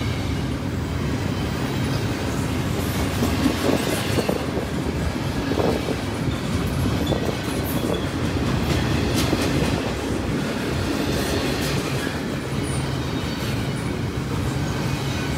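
Double-stack intermodal container cars rolling past steadily, with occasional clacks of the wheels over the rail joints.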